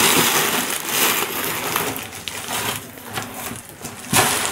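Plastic air-cushion packaging crinkling and rustling as it is handled. It is loudest in the first second or so, then comes in patches, with a short sharp crackle near the end.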